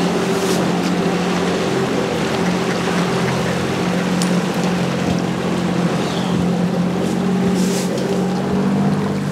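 Outboard motor on an aluminium jon boat running at a steady speed as the boat cruises across the water, an even engine drone that holds one pitch throughout.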